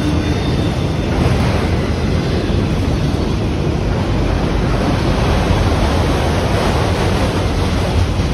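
Freight train of empty autorack cars rolling past: a steady, loud roar of steel wheels on rail with no letup.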